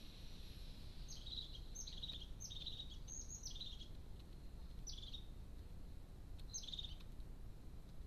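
Faint chirping of a small songbird: about six short high calls, each a quick downward note running into a brief rattle, over a steady low background rumble.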